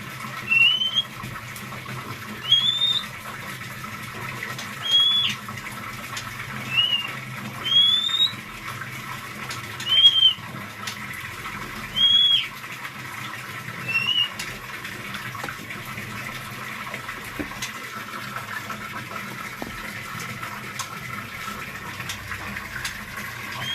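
A black Javan oriental magpie-robin (kacer wulung), just through its moult, calls with short, high, upward-sweeping whistled notes. There are eight of them, about every two seconds in the first half, then a pause and one more near the end. A steady background hum runs underneath.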